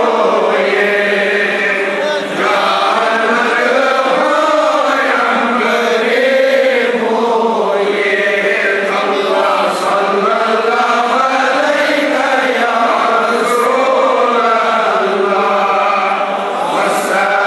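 Men's voices chanting Darood, salutations on the Prophet, together in one continuous, slowly rising and falling melodic recitation.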